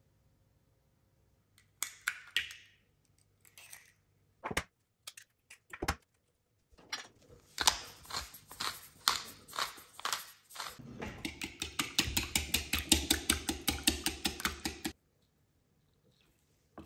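A few separate sharp knocks, then a wooden pepper mill grinding over a bamboo bowl in short crunching twists. Then a wire whisk beats egg yolks against the bamboo bowl in a fast, steady clatter that stops suddenly near the end.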